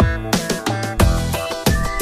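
Background electronic music with a fast drum beat and falling bass sweeps.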